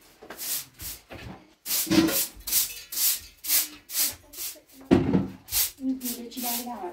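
A broom sweeping a gritty floor: quick scratchy strokes, about three a second, with no break.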